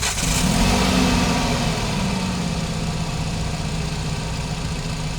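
Nissan QR25 2.5-litre four-cylinder engine just after starting: the revs flare up in the first second or so, then drop and settle into a steady idle about two seconds in. It runs smooth with no erratic idling on its freshly replaced timing chain.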